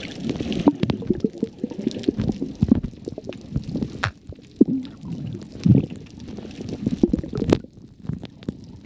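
Muffled underwater sound heard through a submerged camera: irregular low rumbling and sloshing of water against the camera, with scattered sharp clicks and knocks.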